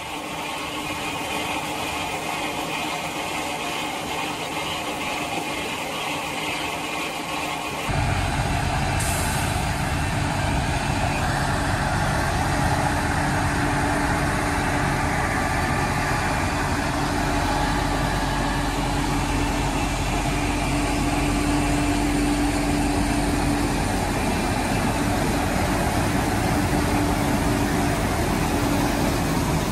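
Potato harvester pulled by a tracked tractor, working a field: steady engine and machinery noise. About eight seconds in it turns louder and deeper, and a steady hum sets in a few seconds later.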